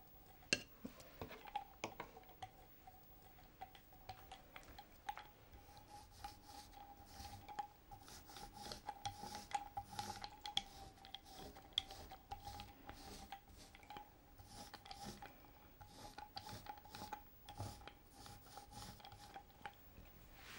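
Faint handling sounds of painting tools, scattered light clicks and rubbing: a gouache tube squeezed out onto a ceramic plate, a damp foam roller worked over the paper, and a brush moving in a ceramic palette near the end. A faint steady tone sits underneath.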